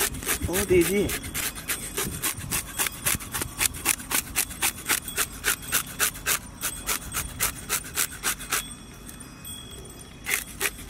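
Knife blade scraping the scales off a black pomfret on a wooden board, in quick repeated strokes several times a second, with a short lull near the end before a few more strokes.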